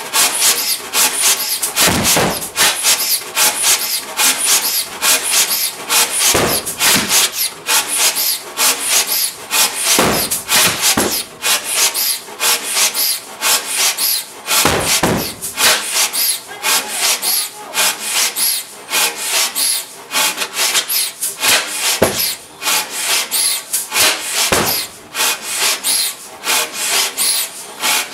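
Old 1930s butane-fuelled generator engine running, a steady, fast, rasping clatter of many rapid strokes.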